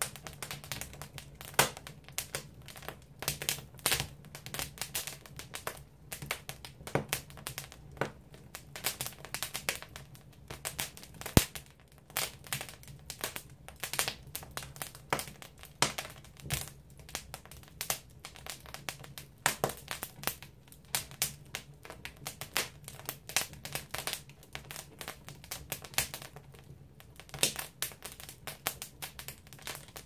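Firewood burning in a traditional Korean agungi firebox, crackling with irregular sharp snaps and pops, several a second, one louder pop about eleven seconds in. A faint low steady hum runs underneath.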